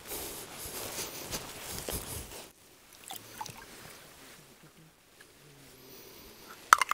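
Water gurgling and sloshing for about two and a half seconds as a plastic bottle is filled from the lake's edge, then quieter handling, and a sharp click near the end.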